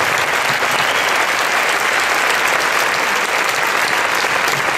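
Crowd applauding steadily: many hands clapping at once in a dense, even patter that neither builds nor fades.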